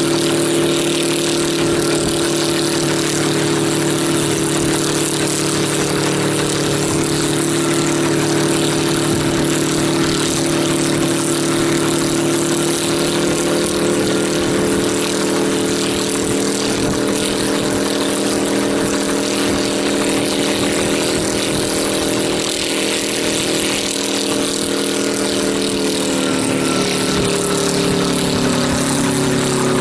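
Engine of a home-built helicopter running steadily during a load test, its pitch sagging slightly near the end.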